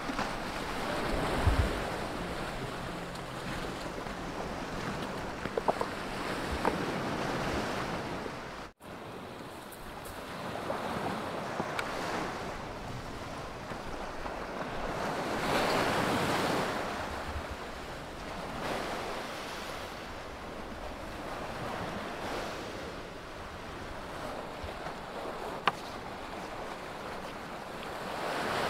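Sea surf washing onto a rocky shore, swelling and falling back every few seconds, with a few sharp clicks.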